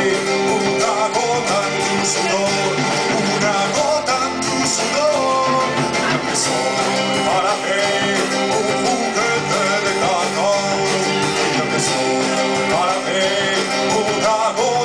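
Live rock band playing: a man sings in Spanish over electric guitar, keyboard and a drum kit with cymbals.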